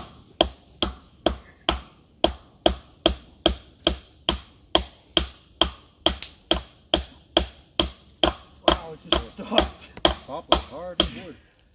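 Steady hammer blows, about two a second, driving a fastener into a poplar tree trunk to hold woven wire fence; the strikes stop near the end.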